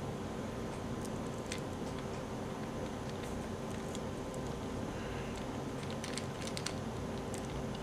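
Faint, scattered small clicks and taps of a Phillips screwdriver and fingers handling a micro R/C helicopter's plastic frame while its underside screws are removed, with a small cluster of clicks about six seconds in. A steady low electrical hum runs underneath.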